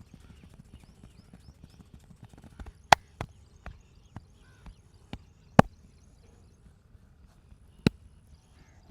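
Masseur's hands striking the body: about eight sharp smacks at uneven intervals, starting about three seconds in, with a last single smack near the end.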